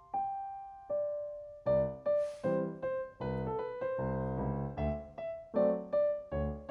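Background music played on piano: single decaying notes at first, then fuller chords with a bass line from about two seconds in, and a brief brushy shaker-like swish shortly after.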